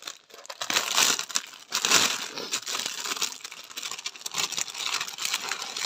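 Clear plastic packaging crinkling and rustling as it is handled and pulled open, with louder crackles about one and two seconds in.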